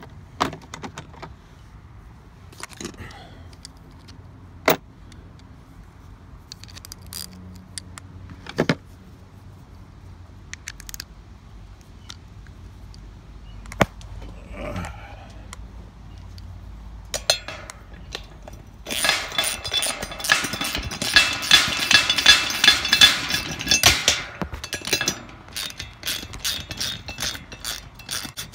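Scattered sharp metal clicks and clinks as a 13 mm socket is handled from a socket set, then a ratchet wrench clicking rapidly and loudly for several seconds from about two-thirds in as it runs a nut onto a bolt.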